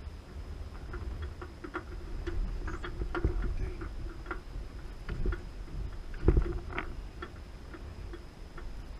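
Fishing reel being cranked, a run of quick ticks and clicks, over a low wind rumble on the microphone. Two louder knocks stand out, about three seconds in and, loudest, about six seconds in.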